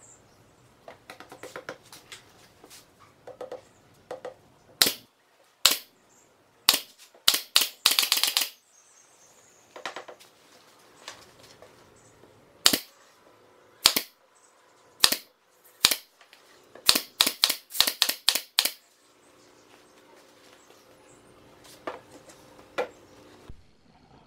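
SOYI pneumatic nail gun firing nails into MDF panels: a string of sharp shots, some a second or so apart and some in quick runs of four or five, around a third of the way in and again past the middle. Fainter knocks come from the boards being handled.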